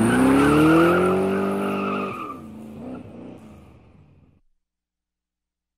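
A car engine sound effect revs up with a steadily rising pitch for about two seconds, drops, then fades away, with a tyre-squeal hiss over it.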